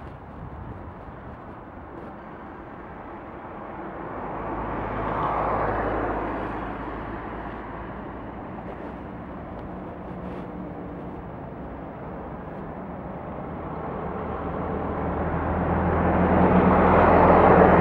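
Engine of a Romanian class 60 'Sulzer' diesel-electric locomotive hauling a freight train as it approaches: a low, steady drone that grows louder toward the end, with an earlier swell of noise about five seconds in.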